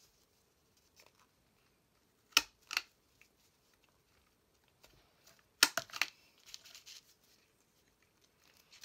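Crop-a-Dile Corner Chomper punching half-inch rounded corners off a card: sharp snapping clicks, a pair about two and a half seconds in and two or three more near six seconds, with light paper rustling between.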